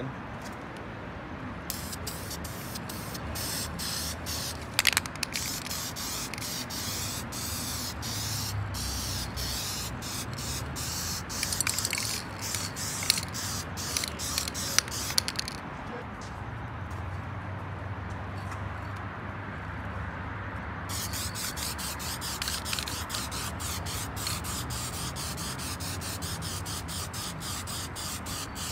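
Aerosol can of engine enamel spraying in long hissing spells, with a break of several seconds a little past halfway, and a few sharp clicks in the first half.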